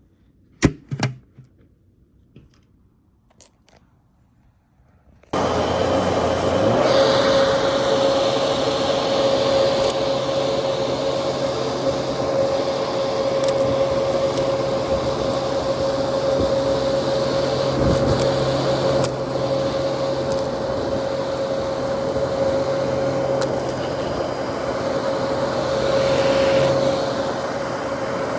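A few sharp clicks, then about five seconds in a Dyson DC33 upright vacuum cleaner switches on suddenly and runs steadily, its motor giving a steady tone over the rushing noise of the airflow.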